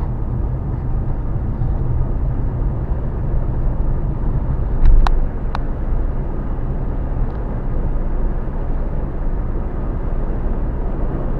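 A vehicle running with a steady low rumble, with two sharp clicks and a brief louder surge about five seconds in.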